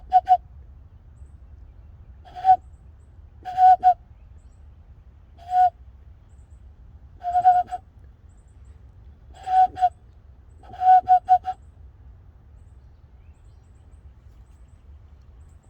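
Owl-like hoots blown through cupped hands: a person imitating a bird call. Short notes at one steady pitch come singly or in quick runs of two to four, every second or two, and stop about eleven and a half seconds in.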